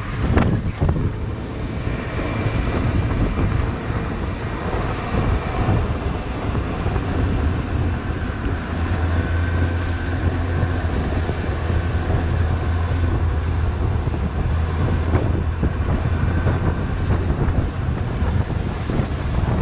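Suzuki GSX-S750's inline-four engine running during riding, mixed with wind noise on a helmet chin-mounted camera's microphone. A steady low engine hum holds from about nine seconds in.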